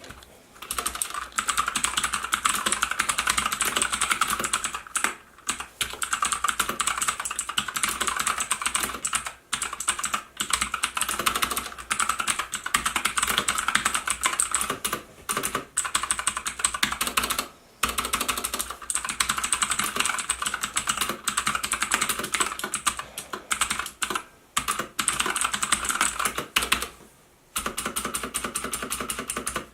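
Typing on an ABKO K640 keyboard: a fast, continuous run of key clicks, broken by a few brief pauses.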